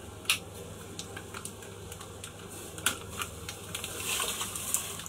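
Raw oysters dropped from a plastic bag into a saucepan of water: a series of small plops and splashes, busiest about four seconds in.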